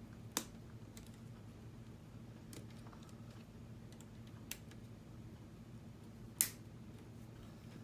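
K'nex plastic rods and connectors clicking as they are snapped into place: four sharp clicks, the loudest about six seconds in. A faint steady low hum runs underneath.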